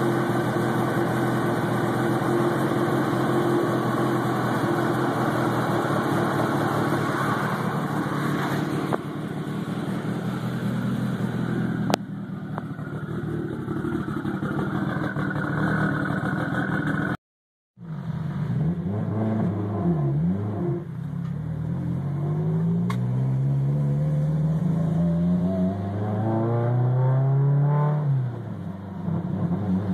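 2005 Mitsubishi Lancer Evolution's turbocharged four-cylinder, breathing through a 4-inch straight-pipe exhaust, idling steadily for the first half. After a brief cut the engine is heard from inside the cabin, revving up and down, then pulling hard with its pitch climbing several times and dropping back between climbs, as when shifting through gears.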